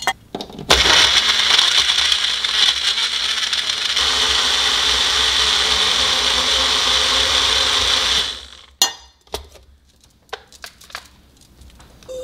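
A Magic Bullet personal blender clicks as its cup is pressed onto the base, then runs loudly for about seven and a half seconds, blending ice and frozen fruit into a smoothie. About four seconds in, the sound turns smoother and steadier as the mix liquefies. It stops abruptly, followed by a few sharp clicks and knocks as the cup is taken off the base.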